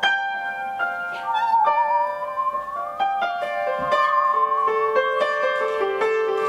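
Upright piano playing a run of notes under a single high bowed tone with a wide, wavering vibrato; the bowed note slides slowly upward about two seconds in and then holds.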